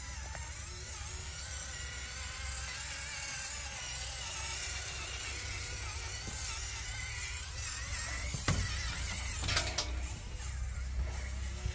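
Electric motor and gearbox whine of a Hobby Plus Arktos 6x6 RC crawler, wavering up and down in pitch with the throttle as it crawls, with a couple of sharp knocks near the end.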